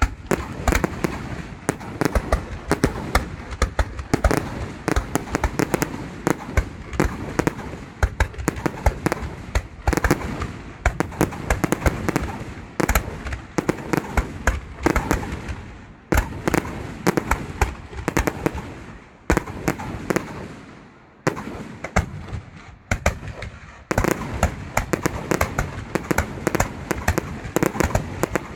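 Fireworks display: a dense, rapid series of loud bangs and bursts, thinning into brief lulls about two-thirds of the way through before picking up again.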